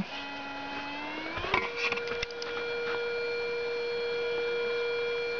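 Koschei 25K deep-seeking metal detector sounding its target tone: a low hum that creeps up in pitch, then about a second and a half in steps up to a higher steady tone. It is signalling a steel shovel pushed into the pit wall about 1.35 m down. A few scrapes and knocks of the shovel in the soil come as the tone steps up.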